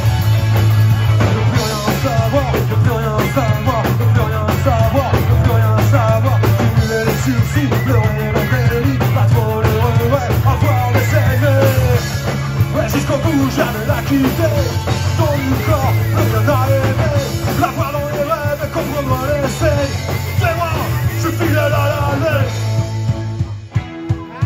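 A live rock band playing loudly: electric guitar, bass guitar and drum kit, with a man singing into a microphone. Near the end the full band drops out, leaving a run of separate sharp hits.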